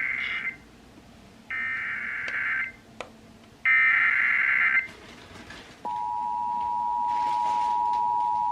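Emergency Alert System SAME header: the end of one harsh, buzzy digital data burst, then two more of about a second each, evenly spaced. About six seconds in, the steady two-tone EAS attention signal (853 and 960 Hz together) begins, announcing a severe thunderstorm warning.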